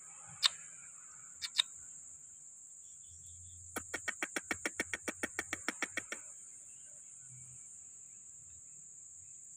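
Steady high-pitched insect chorus, crickets trilling without a break. Two sharp clicks sound in the first couple of seconds, and a quick even run of clicks, about seven a second, lasts about two seconds in the middle.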